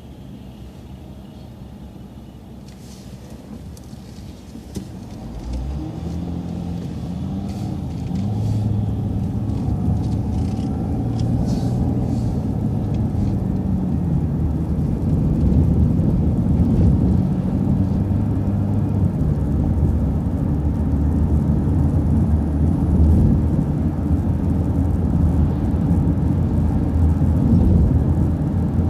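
Transit bus diesel engine idling low, then pulling away about five seconds in and accelerating, its note rising and growing louder before settling into a steady run under load.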